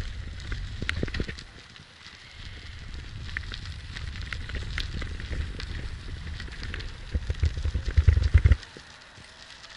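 Gravel crunching with scattered, irregular crackles under someone moving along a gravel path. Wind rumbles on the microphone throughout and is heaviest about eight seconds in.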